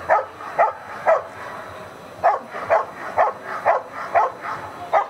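German Shepherd Dog barking at a helper in a bite sleeve while guarding him, about two sharp barks a second, with a pause of about a second after the first three.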